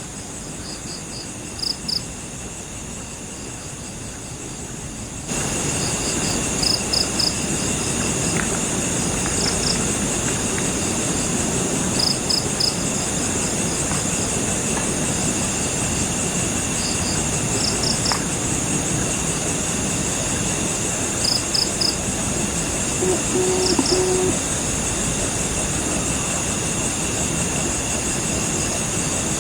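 Night chorus of crickets: a steady high buzz with short chirps in groups of two to four every few seconds, over a steady low rushing noise that gets louder about five seconds in.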